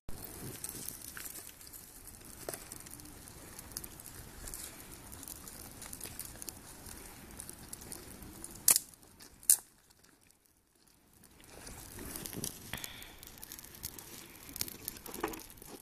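Large wood fire crackling, with scattered sharp clicks and two loud pops about nine seconds in.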